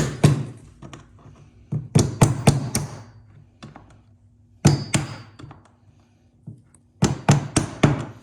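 Hammer tapping on a nail used as a punch to drive a retaining pin out of a plastic Ridgid toolbox. The quick, sharp taps come in four short bursts with pauses between.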